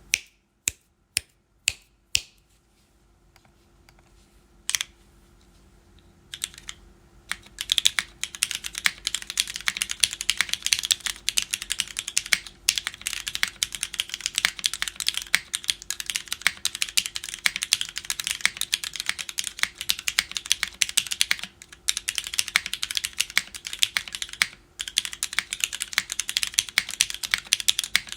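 Mechanical keyboard typing on a JJW Derivative: Cherry MX Black linear switches, lubed, filmed and not yet broken in, in a relief-mounted full aluminium plate under KKB keycaps. A few single key presses in the first five seconds, then fast continuous typing with a few brief pauses.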